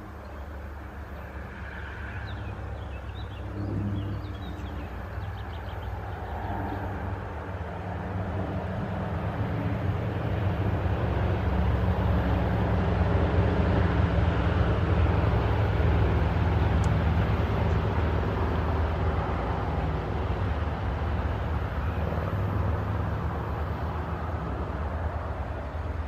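Low engine rumble from a passing motor vehicle, swelling to a peak about halfway through and then slowly fading. A few faint bird chirps sound a few seconds in.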